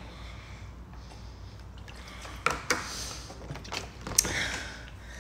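Someone drinking from a plastic water bottle, with a few sharp clicks and short breathy rushes about two and a half and four seconds in.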